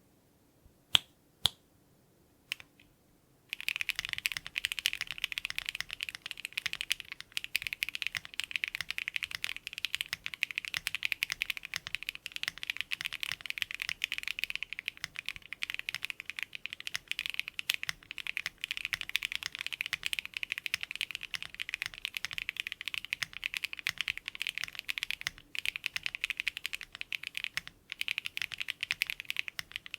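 Typing on a QK75N custom mechanical keyboard with stock HMX Clouds switches, an FR4 plate, no foam and PBT cherry-profile keycaps. A few single key presses come first, then fast continuous typing starts about three and a half seconds in.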